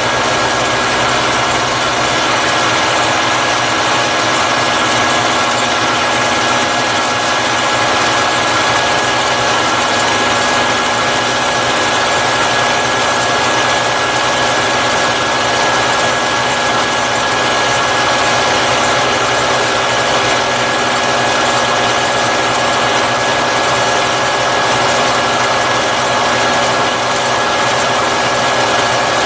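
Vertical milling machine running steadily as an end mill cuts a step into a steel timing cam gear turned on a rotary table, a continuous machine whine with a few steady tones.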